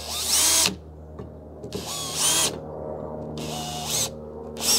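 Power drill with a 5/32-inch bit drilling pilot holes at center-punched marks in a pickup's hood, run in about four short bursts, each a whine that rises and falls in pitch.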